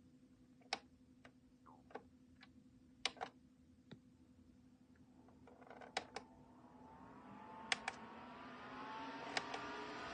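Several sharp clicks, then a small electric fan starting up: from about the middle its motor whine rises steadily in pitch and the rush of air grows louder as it spins up.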